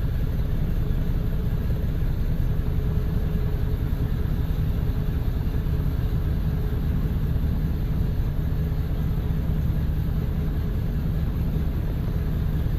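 A 2002 Chevy 1500's V8 idling steadily while misfiring on bank one, in cylinders 1 and 7, the misfire behind its P0300 code and poor running.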